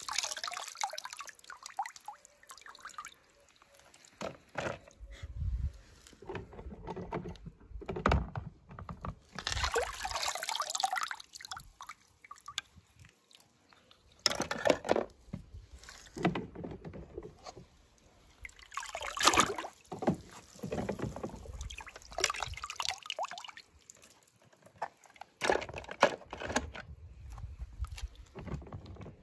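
Water splashing and sloshing in a plastic tub as toy cars are dipped and rinsed by hand, with water dripping and pouring off them, in irregular bursts with short pauses.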